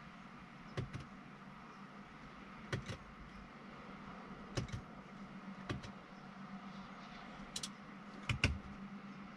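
A handful of short, sharp clicks, most in quick pairs, spaced a second or two apart, over a low steady hum inside a car's cabin.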